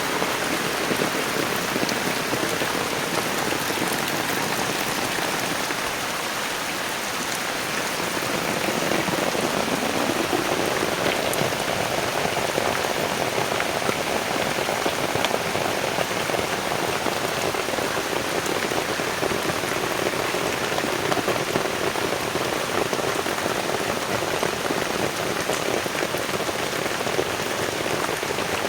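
Heavy rain falling in a steady downpour, a dense even hiss dotted with fine drop impacts.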